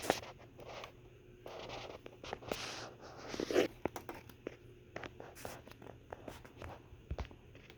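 Handling noise from a MiniDV camcorder: scattered clicks and short rustles as it is turned and worked by hand.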